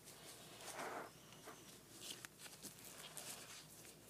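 Faint rustling and a few small clicks as a Franklin batting glove is pulled onto a hand.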